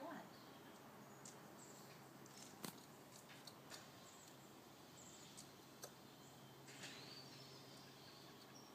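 Near silence: faint outdoor background with a few soft, short ticks, the clearest about two and a half seconds in.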